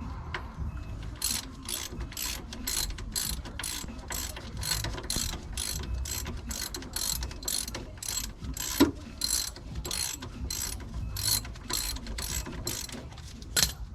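Socket ratchet clicking in a steady rhythm, about two to three clicks a second, as an 18 mm brake caliper carrier bolt is wound out, with one knock about nine seconds in.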